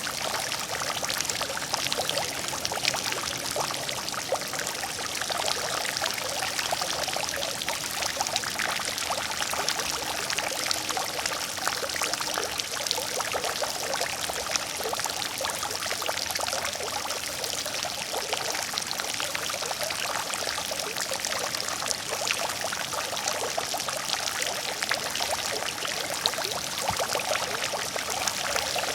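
Water fountain running: a steady splashing and pouring of falling water, with many fine droplet splashes.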